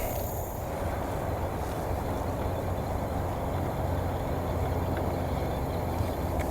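A boat engine running at a steady low hum.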